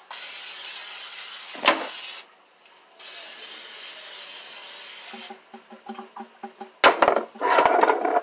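Cooking spray hissing from an aerosol can in two steady bursts of about two seconds each, likely one onto each frying pan to grease it. A sharp knock and some clatter come near the end.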